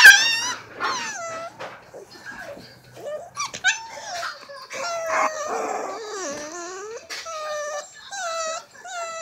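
A puppy crying under its mother dog, who is pinning it down to discipline it: a string of short, wavering, high-pitched whines and whimpers.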